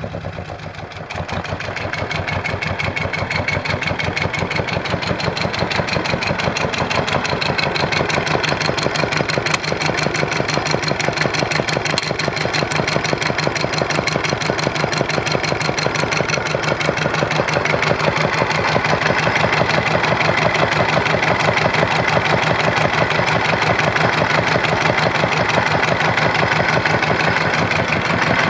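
Isuzu 2AB1 two-cylinder marine diesel running steadily at idle on a test stand, a rapid, even train of firing pulses. It dips briefly in loudness in the first second, then holds steady.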